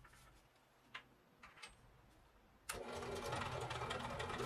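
A few light taps, then about two-thirds of the way through a click as a benchtop drill press's motor is switched on, and it runs steadily.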